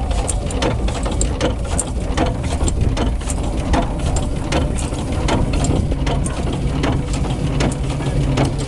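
The African Queen's small marine steam engine running under way: a steady low rumble with a repeated sharp clicking of its working parts.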